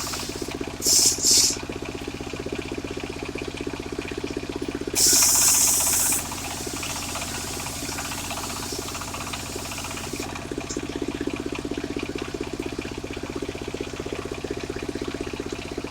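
Engine of a portable circular-saw rig running steadily, with loud hissing bursts as the blade cuts into sengon wood: two short ones about a second in and a longer one about five seconds in.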